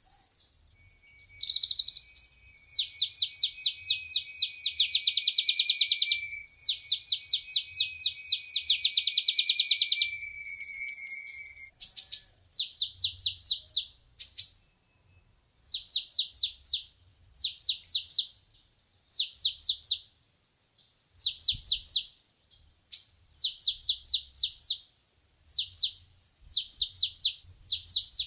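Kolibri ninja sunbird singing: rapid trains of high, sharp notes at about six a second. The song starts with two long runs of several seconds over a steady lower whistle, then breaks into many short bursts of about a second with brief pauses between them.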